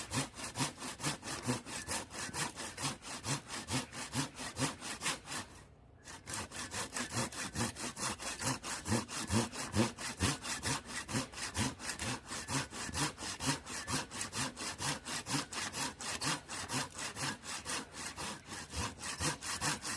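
Hand saw cutting through a log in steady, rhythmic back-and-forth strokes, with a brief pause about six seconds in.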